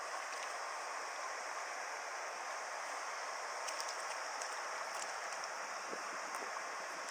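Steady rush of a mountain stream's flowing water, with a few faint ticks over it.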